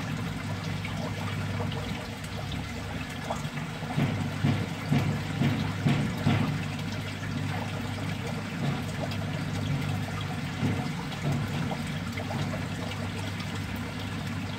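Water trickling steadily into a shallow crab tank over a low steady hum, with a flurry of louder splashes and clicks between about four and seven seconds in.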